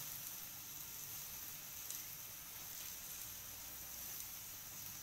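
Faint steady sizzling hiss of skewered pineapple pieces grilling in a wire grill basket over a stove burner.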